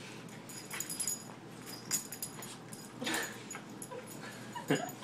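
Two puppies play-wrestling, giving short whimpers and yips, with one sharper pitched yip near the end.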